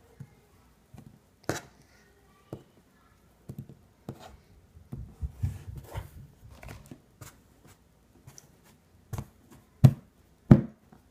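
Hands handling and clearing away kinetic sand: scattered soft taps, pats and rustles, with a few louder knocks near the end.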